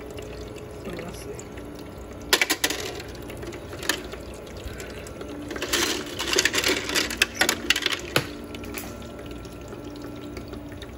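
Bullet-shaped ice cubes clinking against each other and the plastic basket of a countertop ice maker as they are picked up by hand: a few sharp clicks about two seconds in, one near four seconds, and a quick cluster of clicks between six and nine seconds. Underneath runs the Frigidaire ice maker's low steady hum.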